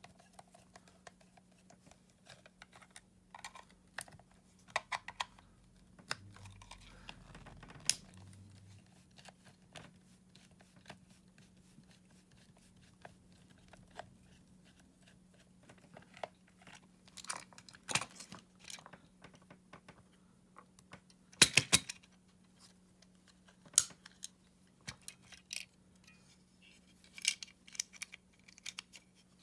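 Scattered clicks, taps and short scrapes of small hard plastic and metal parts being handled, with a quick cluster of sharp clicks about two-thirds of the way through. A steady low hum sits underneath throughout.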